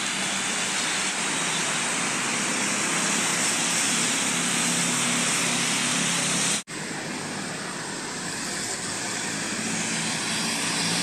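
Road traffic on a rain-wet street: a steady hiss of tyres and spray with a low engine hum from passing buses and cars. The sound breaks off sharply about two-thirds of the way through and picks up again a little duller.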